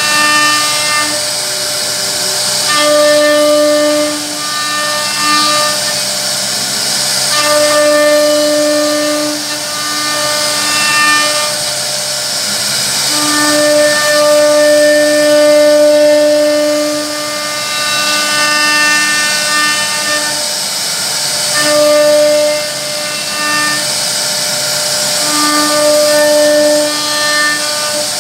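A high-speed CNC router spindle carves wood: a steady pitched whine over the hiss of the bit cutting. The whine comes and goes every few seconds as the cutter works through the carving.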